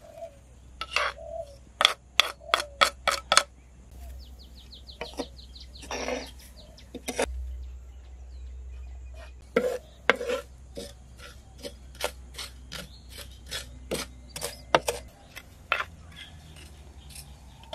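A wooden spoon scraping and tapping against a pan as grated coconut is stirred and dry-roasted until browned, in a run of short sharp scrapes and knocks.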